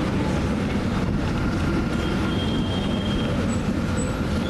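Steady rumble and rattle of a city bus's engine and body from inside the cabin while it drives.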